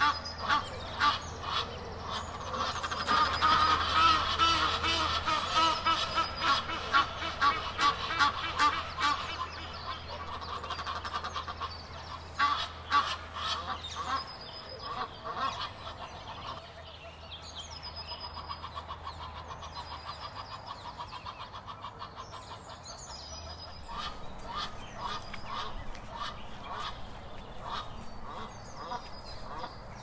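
Geese honking over and over in rapid runs of harsh calls, loudest in the first ten seconds, quieter in the middle, then picking up again near the end. The calling comes while a yellow-billed kite hunts them, typical of alarm calls at an aerial predator.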